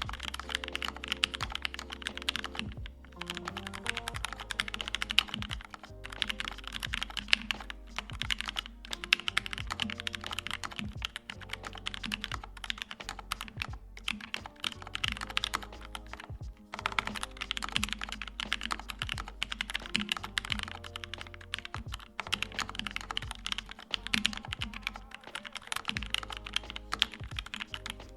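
Fast typing on a KBDFans Mountain Ergo mechanical keyboard with OPBlack switches and GMK keycaps in an aluminum case and plate: a dense run of crisp keystroke clacks with short pauses. Background music plays underneath.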